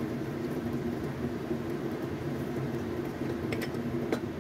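Steady low rushing of a gas stove flame under a wok of vegetables simmering in a little water. Two light clicks come near the end.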